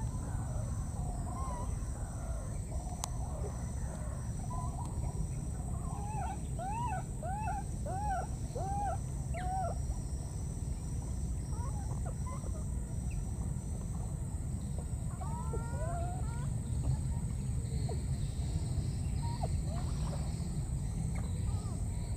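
Baby macaques calling for their mother: a run of short squeals that rise and fall in pitch, about one every half second for a few seconds, with scattered further calls later, over a steady low rumble.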